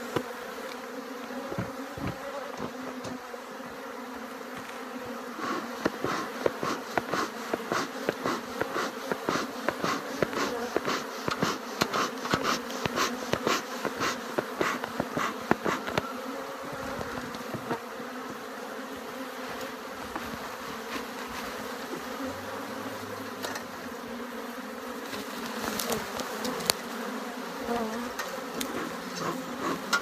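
A swarm of honeybees buzzing at close range: a dense, steady hum that holds one pitch, with stretches of frequent sharp ticks over it.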